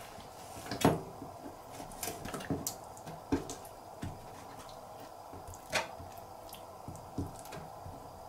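Kitchen knife tapping and knocking on a plastic cutting board while slicing squid, with a few sharper knocks standing out: about a second in, midway, and near six seconds. A steady low hum runs underneath.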